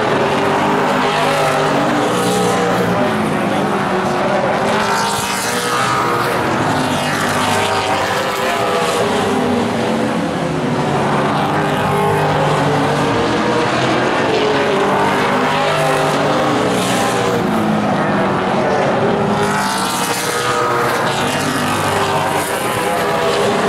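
Late model stock cars' V8 engines racing at full throttle around a short paved oval, several cars at once. The engine pitch swells and bends up and down as the pack passes, again and again.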